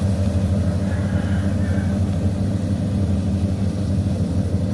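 Farm machine's diesel engine running steadily at an even speed, a low, constant drone.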